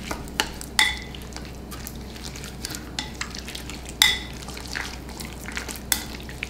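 Chopsticks stirring raw chicken pieces in a wet soy-sauce marinade in a ceramic bowl, with scattered light clicks of the chopsticks against the bowl. Sharper ringing clinks on the bowl come near the start and again about four seconds in, the second the loudest.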